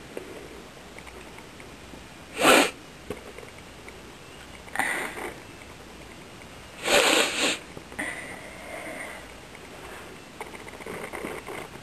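A person sniffling through the nose again and again: a short sharp sniff, a weaker one, then a longer loud sniff, followed by several softer sniffles.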